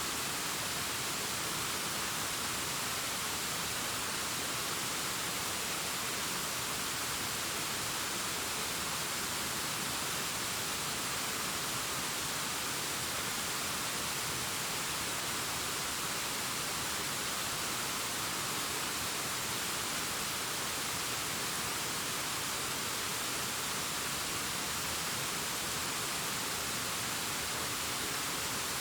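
Distant waterfall cascading down a rockface: a steady, unchanging rushing hiss, mostly high in pitch.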